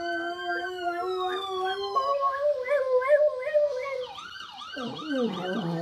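A dog howling in long, drawn-out notes that waver in pitch, joined by a wailing emergency siren; near the end the sound breaks into quick rising-and-falling sweeps.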